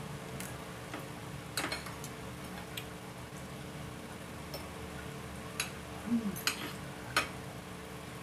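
Metal cutlery clicking and tapping against a ceramic plate during eating, about six separate sharp clicks, over a steady low hum.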